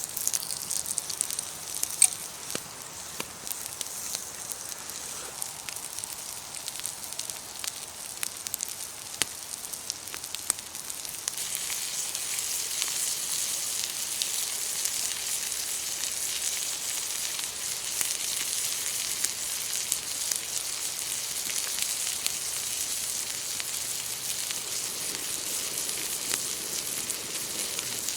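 Breakfast food, potato rosti among it, sizzling on a slab of slate heated over a wood fire, with scattered sharp crackles and pops. The sizzle grows louder about a third of the way in and then holds steady.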